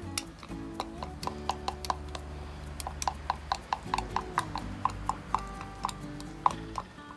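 Background music: held low notes under a light, quick tapping percussion line of short ringing clicks.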